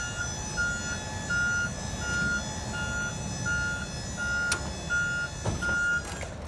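Truck warning beeper sounding about once every 0.7 seconds while a Scorpion truck-mounted attenuator is lowered from its upright travel position into its deployed position, over the truck's idling engine. A couple of clunks come shortly before the beeping stops, about six seconds in.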